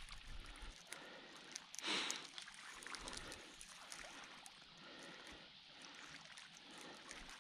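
Faint rustling and small clicks of a bottom fishing line being pulled in by hand, with one louder breathy rustle about two seconds in.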